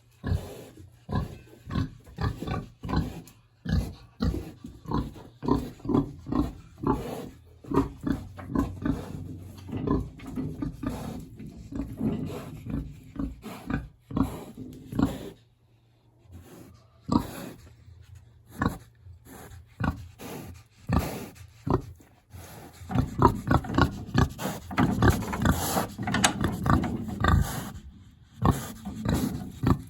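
Big black pig grunting in short, separate bursts, about two a second, thinning out midway and coming thick and close together again near the end.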